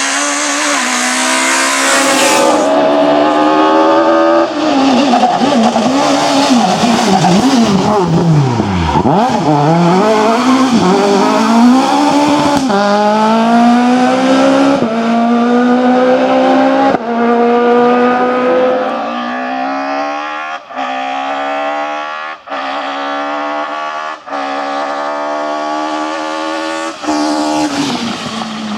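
Rally car engine at high revs, accelerating hard through the gears: the engine note climbs and drops back at each of several quick upshifts, with short breaks in the sound at the later shifts.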